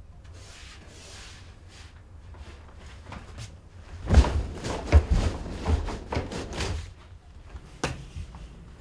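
Thumps and knocks of a person landing on a bed and scrambling across it on hands and knees, loudest from about four to seven seconds in, then a single knock near the end, over a low steady hum.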